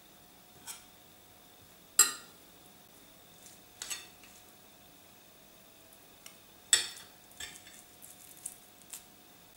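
Metal spoons clinking and scraping against a stainless steel bowl and a metal plate while a ball of kefta mixture is rolled in flour. There are two loud clinks, one about two seconds in and one near seven seconds, among several lighter taps.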